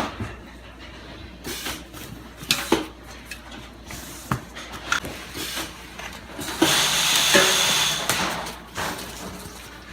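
Kaizen foam being cut with a knife along a T-square: scratchy cutting strokes, the longest and loudest about two thirds of the way in, among scattered knocks and clicks of the tools being handled.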